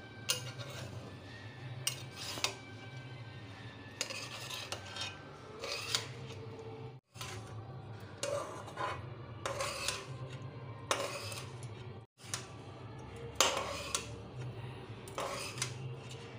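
Metal spoon scraping and clinking against a steel pan in repeated strokes, about one a second, as cooked rice is mixed into the lemon-turmeric tempering, over a steady low hum. The sound cuts out completely for an instant twice.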